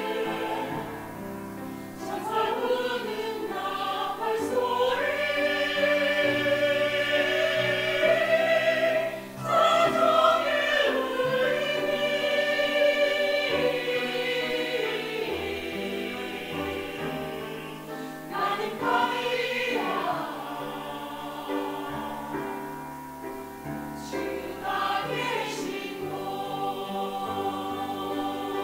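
Mixed church choir of men and women singing a Korean gospel anthem in harmony, phrase after phrase, with a short break about nine seconds in.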